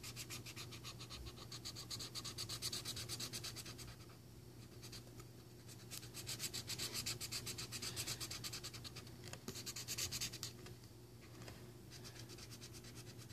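Rapid back-and-forth scribbling strokes of colouring in by hand, many strokes a second, in runs of a few seconds with short pauses about four seconds in and again near eleven seconds.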